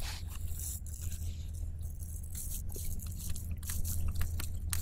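Knife cutting through a thick broccoli stalk at an angle: a run of short, crisp crunching and scraping clicks, with a low steady hum underneath.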